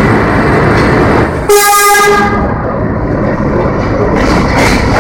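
R32 subway train pulling out of the station, its motors and wheels making a loud, steady rumble. About a second and a half in, the train's horn sounds once, a short steady blast of under a second.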